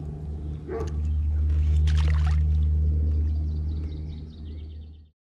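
A steady low motor hum that swells about a second in and fades again. A brief sharp sound comes about two seconds in. The audio cuts off suddenly near the end.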